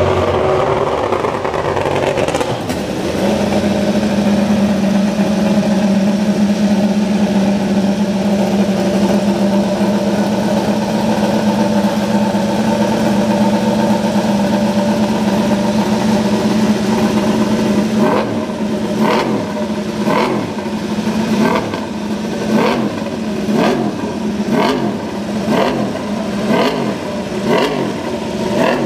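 Aprilia MotoGP race bike's V4 engine running on its stands: it settles from higher revs into a steady idle in the first few seconds. About two-thirds of the way through, the throttle is blipped over and over, about once a second, each rev rising and falling.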